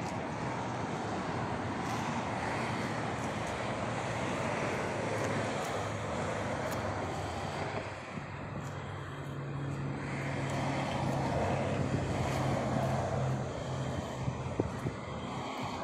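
A vehicle engine running steadily under a continuous rushing noise. Its low, even hum stands out more clearly in the second half.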